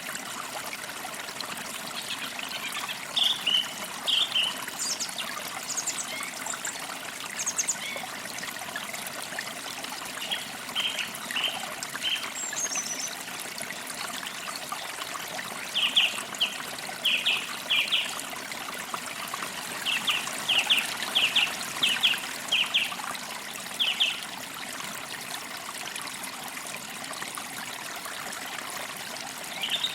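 Forest creek trickling steadily, with a songbird chirping in short runs of quick repeated notes several times.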